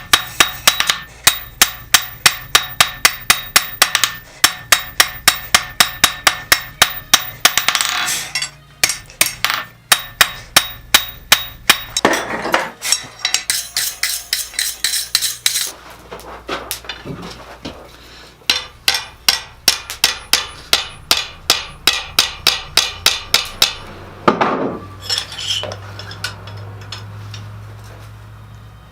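Blacksmith's hammer striking steel on an anvil in fast runs of about four ringing blows a second, with short pauses between runs. The hammering stops a few seconds before the end.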